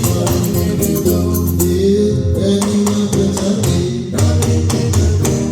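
Band playing a gospel song, with guitar over a steady drum beat; the beat thins out about four seconds in as the song winds down.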